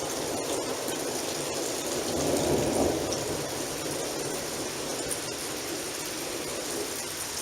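Steady rain during a thunderstorm, with a rumble of thunder swelling about two seconds in and fading by three seconds.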